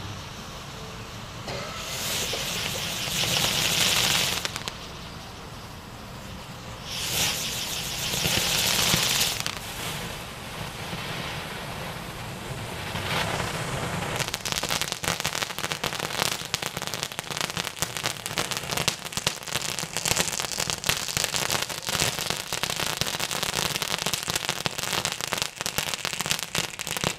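A Blackhawk helicopter ground-novelty firework burning on concrete. It hisses loudly in two bursts as it throws sparks, then crackles rapidly and densely through the second half before it dies away near the end.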